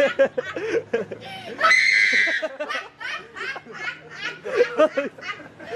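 Hearty laughter in quick repeated bursts, with one high, drawn-out squeal of laughter about two seconds in.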